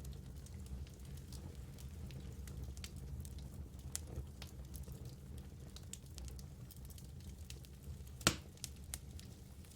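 Wood fire in a fireplace burning with a low rumble of flames and scattered small crackles, and one sharp, loud pop a little over eight seconds in.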